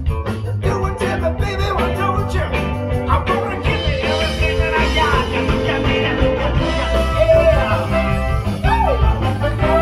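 A live band playing upbeat music with a singer over a steady beat.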